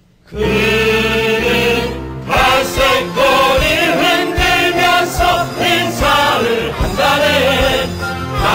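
Stage-musical ensemble chorus singing in Korean over instrumental accompaniment, coming in loudly after a brief hush, with a steady beat from about two seconds in.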